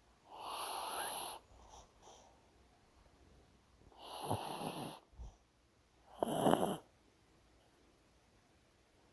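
Pet dog snoring in its sleep: three loud snores a few seconds apart, the third shorter and sharper, with quiet breathing between.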